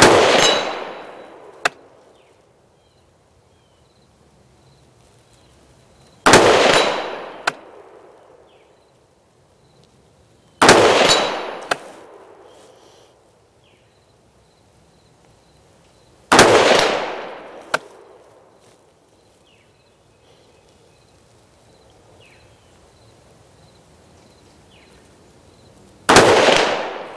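Five single rifle shots, several seconds apart, each echoing away over about a second and a half. About a second and a half after each of the first four comes a faint sharp tick: the 100-yard steel target ringing on a hit.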